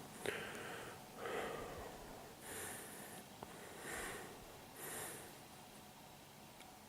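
A person's breathing close to the microphone: five soft breaths about a second apart, fading to quiet after about five seconds.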